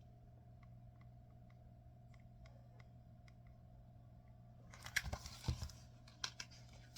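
Paper rustling and crinkling with a few sharp taps from about five seconds in, as a picture-book page is handled and turned, over a faint steady room hum with small ticks.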